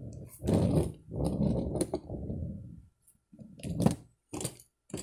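Hands handling a plastic toy monster truck: rubbing and rustling for about two seconds, then a few sharp clicks and knocks as the truck is set down on the bench, the loudest a little before the end.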